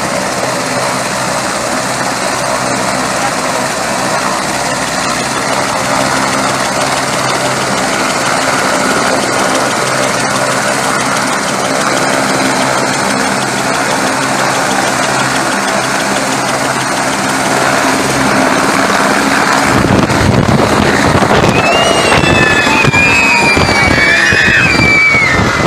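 Light helicopter running on the ground with its rotor turning, a steady turbine whine, then lifting off about twenty seconds in as the sound grows louder and rougher with rotor beat. High whistles ring out over it near the end.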